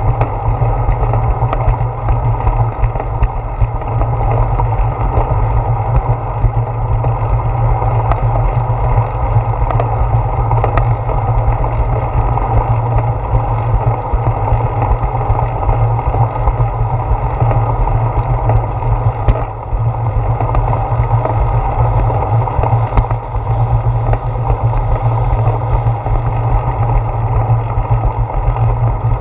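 Steady wind noise on a handlebar-mounted GoPro Hero 4's microphone while cycling, mixed with the rumble of bicycle tyres on a concrete path.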